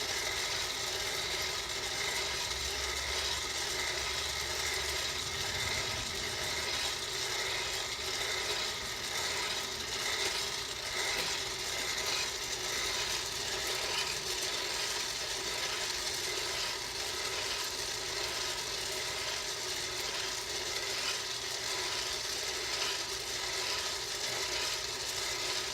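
Electric Bar Well coffee roaster running steadily, its motor humming with a continuous rattle of coffee beans being stirred inside. The beans are mid-roast, turning light brown and not yet at first crack.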